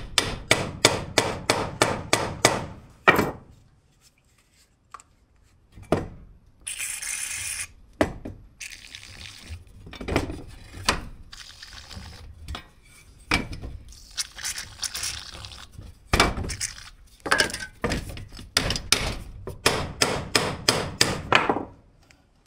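Ball-peen hammer striking a rusted scissor jack in quick runs of blows, about four a second, to break loose its seized threaded rod. In a pause between the runs, a can of aerosol spray hisses twice.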